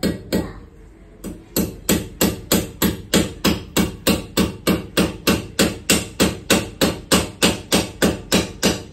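Hammer driving a nail through a metal L-bracket into a plastered wall, struck in a fast even rhythm of about four blows a second after a brief pause about a second in. This is the second fastener of the bracket being hammered home.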